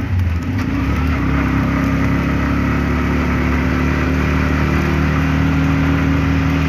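Mototaxi (three-wheeled motorcycle taxi) engine running under way, heard from inside the canvas-sided passenger cabin. The engine note changes briefly about half a second in, then holds steady.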